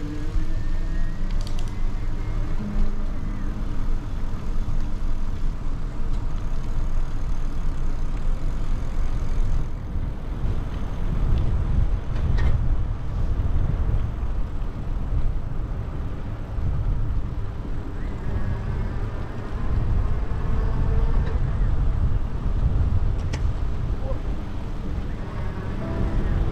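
Wind buffeting the microphone of a moving bicycle, a deep fluctuating rush with a few faint clicks scattered through it.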